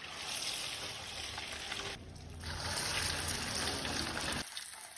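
Hot oil sizzling as sempolan ayam deep-fry: an even hiss in two stretches, with a short break about two seconds in, dropping away near the end.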